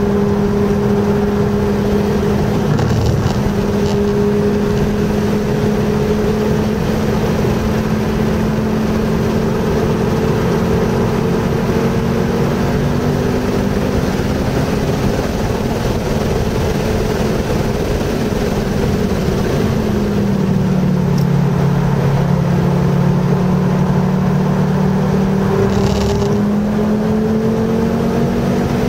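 Car engine running under way, heard from inside the cabin with road and wind noise. The engine note holds fairly steady, drops about twenty seconds in, then climbs gradually again. There is a brief knock a few seconds in and another near the end.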